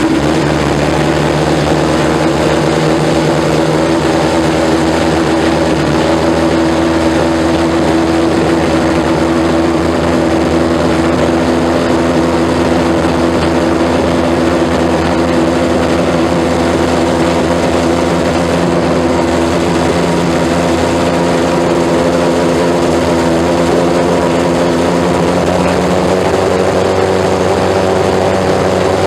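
Benetton B193 Formula One car's Ford HB V8 idling steadily at a fixed speed, loud.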